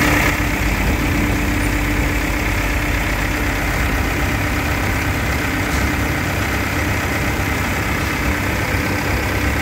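Four-cylinder turbocharged diesel engine of a 140-class wheeled excavator idling steadily, heard close up in the open engine bay.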